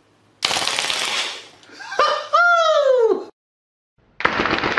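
Armorer Works M712 gas blowback airsoft pistol firing on full auto: a rapid burst about half a second in, and another burst starting near the end. Between them come a single sharp click and a short pitched whine that falls in pitch.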